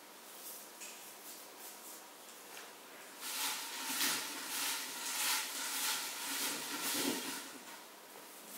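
Folded paper slips rustling as a hand stirs through them in a large glass bowl, getting much louder about three seconds in. Before that, light crinkling of a single paper slip being handled.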